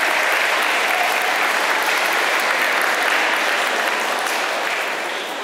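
Audience applauding: steady, dense clapping that begins to fade near the end.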